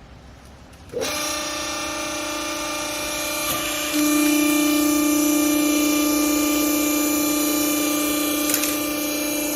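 Clothes compress baler's motor starting up about a second in and running with a steady hum, growing louder about four seconds in.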